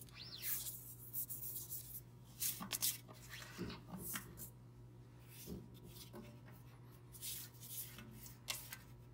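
A spatula scraping caked investment off the metal walls and central shaft of an investment mixer bowl, in repeated short scraping and rubbing strokes. This scrapes the unmixed powder down into the water so the mix proportions come out right.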